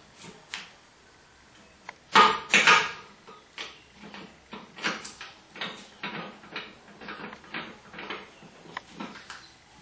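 Metal knocks and clanks as a lid and screw clamp are handled and fitted onto the top of a homemade drum gasifier burner. Two loud knocks come about two seconds in, followed by a string of lighter clicks and taps about every half second as the clamp is set and screwed down.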